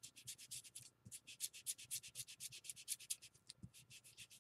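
Small round ink applicator rubbed quickly back and forth over a thin, old book page, distressing it with distress ink: faint, even scratchy strokes, about six a second, with a brief break about a second in.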